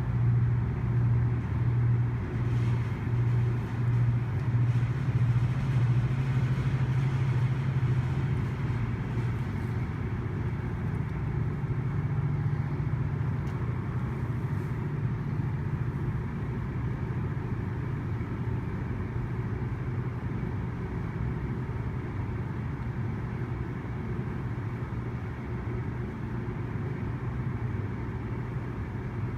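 GO Transit commuter train's diesel locomotive running with a low engine drone. The drone pulses in a slow rhythm for the first several seconds, then settles steady and a little quieter.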